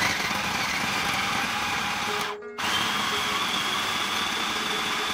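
Electric food processor running, its blade grinding chunks of raw meat, onion, green chillies and spices into a paste. The motor noise is steady and drops out briefly about halfway before going on again.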